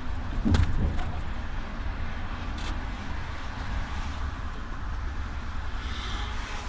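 Motor coach driving on a motorway, heard inside the passenger cabin: a steady low rumble of engine and tyres. A thump about half a second in, then a few lighter knocks.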